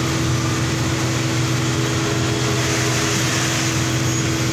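Truck engine running steadily while driving, heard from inside the cab: a constant low hum with a steady tone over it.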